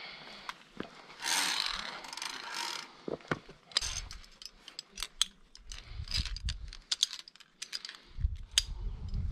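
Metal via ferrata carabiners clicking and clinking against the steel safety cable, many sharp clicks in quick succession. It starts with rubbing and scraping, and low rumbling bumps come in now and then later.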